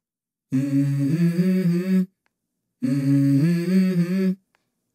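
Wordless hummed vocal melody opening a song: two short phrases of a second and a half each, with held notes stepping up and down and a short pause between them.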